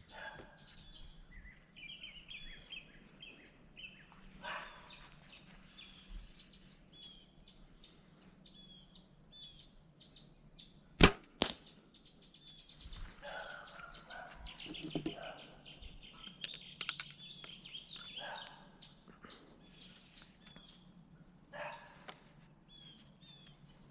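A bow is shot about eleven seconds in: one loud, sharp crack of the released string and arrow, with a second crack about half a second later. Small birds chirp throughout, with scattered rustling around it.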